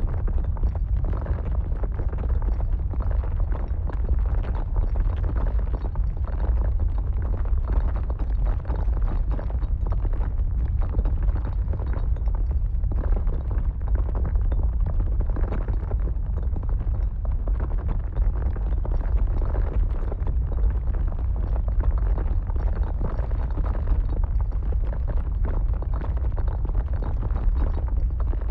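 Earthquake sound effect: a continuous deep rumble with irregular rattling and crackling over it, steady in level throughout.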